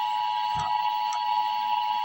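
Emergency Alert System two-tone attention signal: two steady tones close together near 1 kHz (853 and 960 Hz) sounding at once as one continuous alarm.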